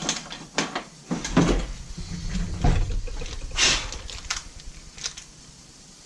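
Workbench handling noises as tools and leather are picked up and set down: a series of separate knocks and clatters, with a short scrape a little past the middle. They thin out toward the end.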